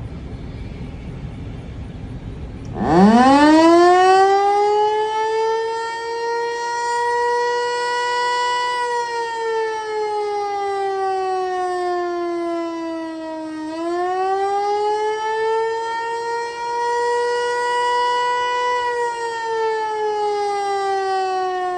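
Federal Signal Eclipse 8 electronic outdoor warning siren sounding a wail in a test. After about three seconds of low background rumble it winds up quickly from a low pitch and holds high. It then slides down, rises again, and is falling again near the end.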